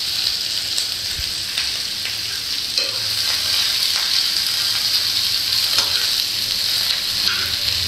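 Chopped onion, tomato, peanuts and spices sizzling steadily in a little oil in a frying pan on a low gas flame. A metal spoon stirs them, with a few short scrapes and clicks against the pan.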